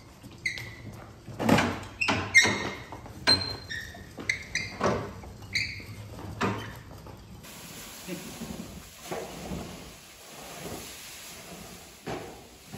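A wheeled body dolly carrying a bare car shell is pushed across a concrete workshop floor, with repeated knocks and clunks and short high squeaks. About seven seconds in, this gives way to a steady hiss with plastic masking sheet rustling as it is pulled over the car.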